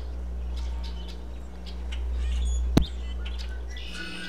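A steady low hum with faint bird-like chirps over it, broken by one sharp click a little under three seconds in. Near the end, several high held tones start together, as a chord might.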